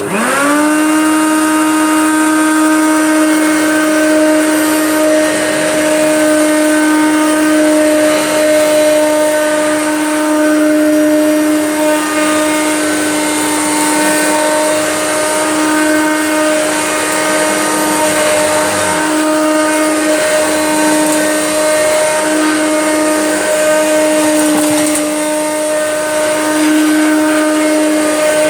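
Older Hoover vacuum cleaner switched on, its motor spinning up in a quick rising whine, then running with a steady, very noisy whine. The owner takes the noise as a sign the machine might need looking at.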